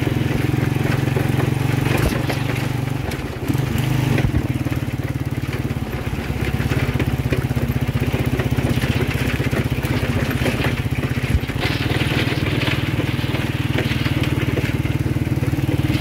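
Motorcycle engine of a passenger tricycle running steadily as it drives slowly along a rough dirt track, with a few sharp knocks from the rutted, stony ground.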